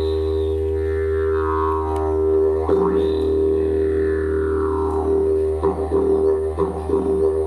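Didgeridoo played as a steady low drone, its overtones sweeping up and down as the player shapes the sound, with a few short rhythmic accents in the second half.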